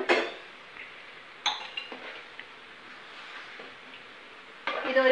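A metal ladle clinking against the metal cooking pot as rice and water are stirred. There is a sharp clink at the start and another about a second and a half in, then louder stirring near the end.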